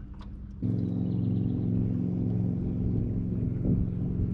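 A boat motor starts suddenly about half a second in and runs steadily with a low, even hum as the boat moves toward the shore.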